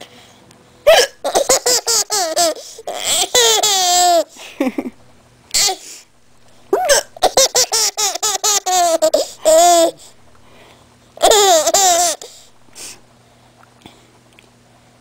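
A woman's hiccups and a 10-month-old baby's laughter set off by them, coming in repeated bursts: short sharp catches mixed with strings of high giggles. It falls quiet near the end.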